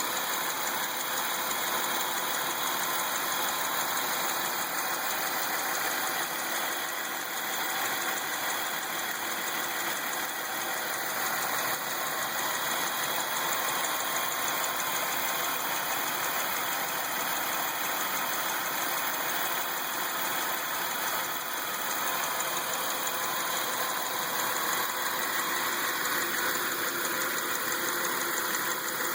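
Ecotec 3.8 V6 engine of a 2003 Lumina idling steadily with a ticking, which the owner suspects is a lifter. Another noise runs alongside it, which the owner believes comes from the alternator.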